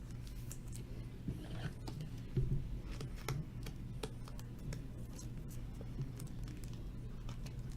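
Trading cards being handled: light, irregular clicks and scrapes of card stock sliding and tapping, over a steady low electrical hum.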